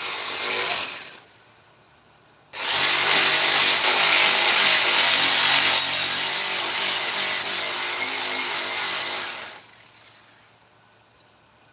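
Electric power tool cutting or grinding wood: a short run that dies away about a second in, then after a pause it starts abruptly and runs loud for about seven seconds before stopping.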